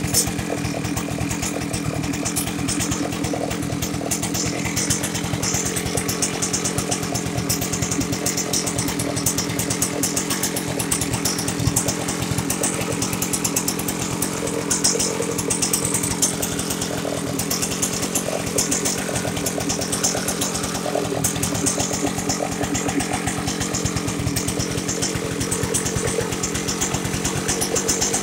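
Partner K850 two-stroke concrete cut-off saw engine running steadily at a constant speed, with no revving.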